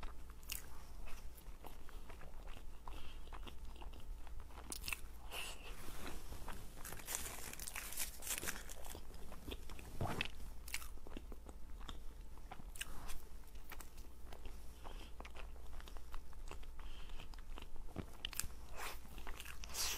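Close-miked eating sounds of a snow-skin mochi (xuemeiniang): soft, wet bites and chewing with many small mouth clicks throughout.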